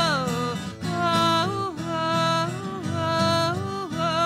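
A woman singing held, bending notes over strummed guitar chords, with a falling slide in the voice at the start.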